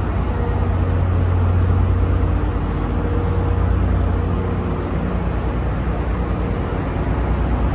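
MPI-built, EMD-powered diesel passenger locomotive running steadily: a deep, even engine drone with a faint steady tone above it.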